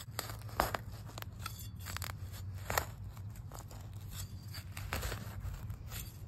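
Metal hand trowel scraping and scooping dry, crumbly soil to backfill a planting hole: irregular gritty scrapes and crunches, with a few sharper strokes about half a second, two and a half seconds and five seconds in.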